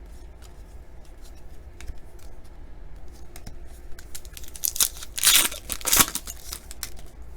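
Plastic wrapper of a trading-card pack being torn open and crinkled, loudest about five seconds in, among light clicks and rustles of cards being handled.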